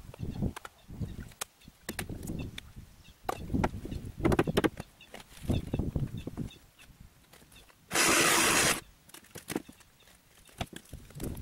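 Wreckage of a torn-down camper being pulled apart by hand: irregular knocks, clatters and scrapes of wood framing and metal siding. About eight seconds in comes one loud, harsh noise lasting just under a second, louder than anything else.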